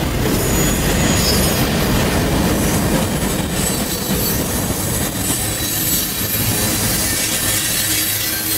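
Freight train of boxcars and tank cars rolling past close by: a steady rumble and clatter of wheels on rail, with thin high-pitched wheel squeal over it. The deep rumble eases somewhat about halfway through.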